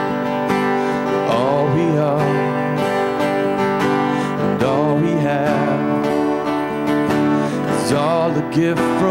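Contemporary worship song: strummed acoustic guitar with sung phrases over it.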